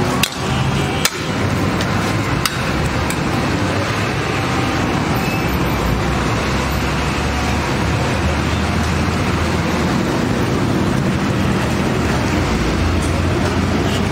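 Steady busy-street noise with a low rumble of passing traffic. A few sharp metal clinks of a ladle against the big cooking pot come in the first few seconds.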